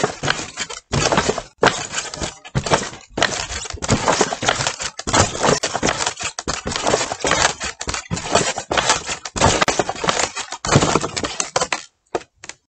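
Dense crackling and scraping as a large wooden walking moai figure rocks and shuffles its feet across wooden boards, in rapid uneven bursts that stop abruptly near the end.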